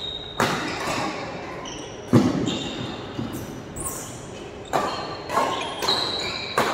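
Badminton play echoing in a sports hall: half a dozen sharp hits, a second or two apart and closer together near the end, with short squeaks of shoes on the court floor.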